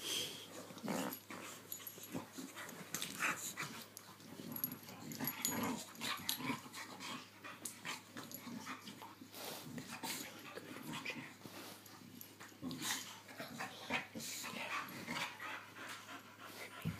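Two boxer dogs play-wrestling, making irregular breathy noises with scuffling and short clicks.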